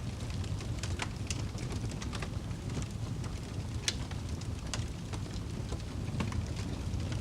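Wood fire crackling: irregular sharp pops and snaps over a steady low rumble, with a few louder pops scattered through.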